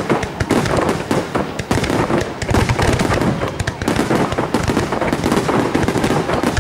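Fireworks display: a dense, continuous run of shell bursts and crackling, with rapid overlapping bangs.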